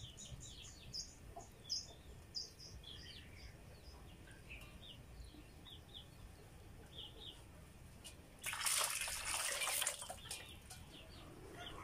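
Short high bird chirps come and go, and about eight and a half seconds in there is a second and a half of water splashing in a steel basin as washed duck intestines are dunked and lifted out dripping.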